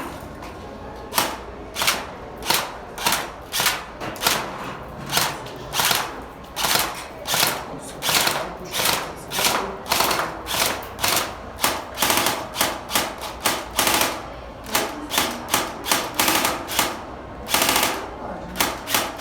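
Airsoft guns firing a long run of single shots in an uneven rhythm, about two to three a second.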